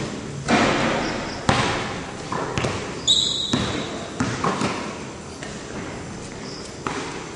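Basketball bouncing on a court floor in a large echoing hall: a handful of irregular sharp thuds, with a short high squeak about three seconds in.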